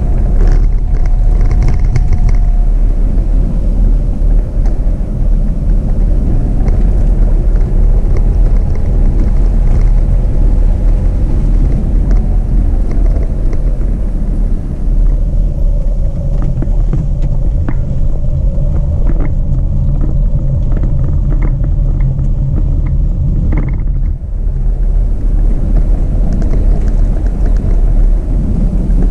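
Jeep Renegade on the move: heavy, steady road rumble with an engine hum whose pitch drifts slowly up and down, and scattered light ticks.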